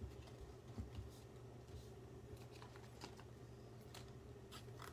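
Faint handling of trading cards: a few soft taps and slides as the cards are sorted in the hands, over a steady low hum.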